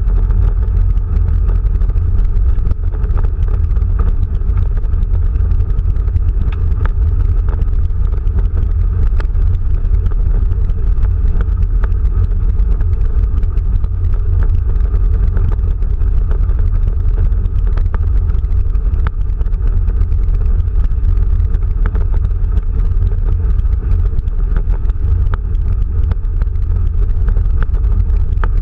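Steady low rumble of a Quest velomobile rolling along a rural alley: tyre and road noise carried through its shell, with occasional light ticks scattered through it.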